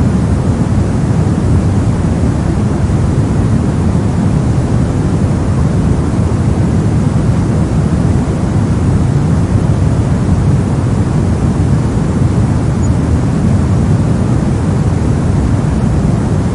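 Synthetic brown noise: a steady, deep, even hiss, heaviest in the bass and thinning toward the treble, with no changes or separate sounds.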